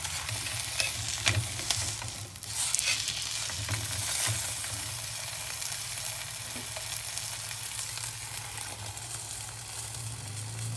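Oil sizzling and frying in a hot steel wok around a foil-wrapped fish, a steady hiss. In the first few seconds, a few sharp clicks and scrapes of spatulas against the wok and foil as the parcel is turned over.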